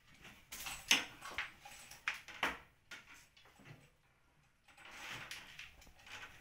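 Bundle of house-wiring cables being pulled through a ceiling conduit: irregular scraping and rustling strokes, with a short lull a little past the middle.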